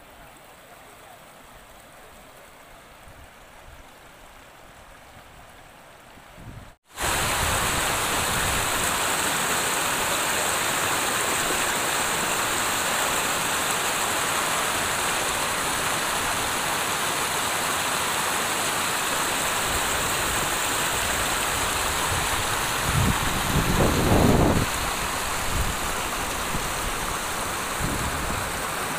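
Steady rush of muddy floodwater pouring across a washed-out road. It is faint for the first few seconds, then much louder after a sudden cut about seven seconds in. A brief louder rumble comes about 23 seconds in.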